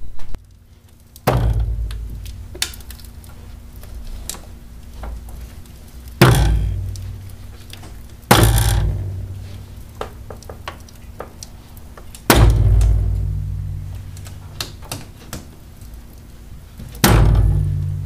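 Front strut of a 2000 Chevy Venture minivan clunking as the wheel is steered: five loud bangs spaced a few seconds apart, each ringing and dying away, with smaller clicks between and a faint steady hum underneath. The noise comes from the coil spring binding and jumping on a failed upper strut mount bearing.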